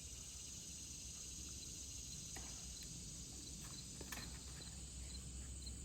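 Steady high-pitched chirring of summer insects, with two or three faint clicks.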